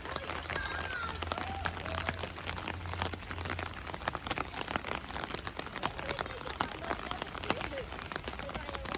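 Steady rain, with many separate drops ticking sharply close by.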